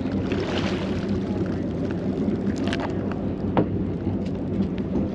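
Charter boat's engine running with a steady low hum under wind and water noise, with a few short sharp clicks and knocks from handling the fishing reel near the middle.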